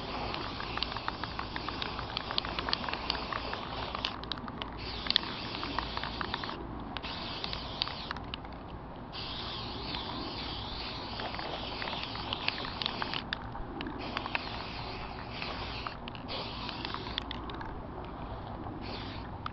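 Aerosol spray paint can hissing as black paint is sprayed in long bursts, cutting out briefly several times between bursts, with scattered crackling clicks in the first few seconds.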